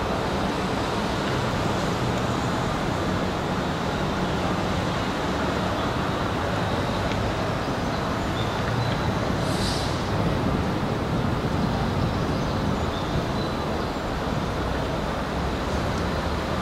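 Steady urban traffic rumble that holds level throughout, with a brief high hiss about ten seconds in.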